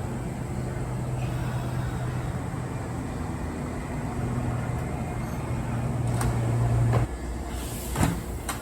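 Kintetsu electric train at the station giving a steady low hum that cuts off abruptly about seven seconds in, followed by a few sharp clacks near the end.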